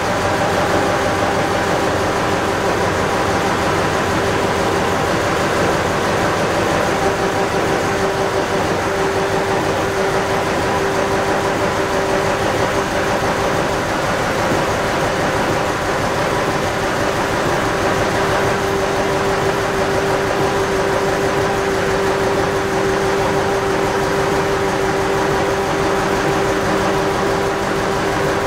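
Vintage stationary machinery in an engine hall running steadily: an even mechanical hum with a constant whine that does not change.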